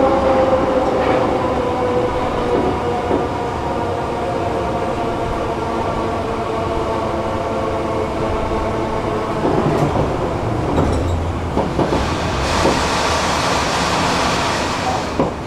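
Warsaw metro train slowing into a station, heard from inside the car. The traction motors' whine falls slowly in pitch over the running rumble, and a few knocks and a hiss come in the last few seconds as it comes to a stop.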